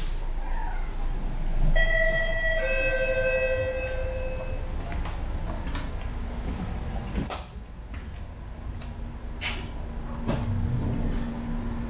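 A two-note descending electronic chime rings out inside the double-decker bus about two seconds in, the notes overlapping and ringing on for a few seconds, over the bus's steady low running rumble. Later a steady low hum sets in, with a few sharp clicks and knocks.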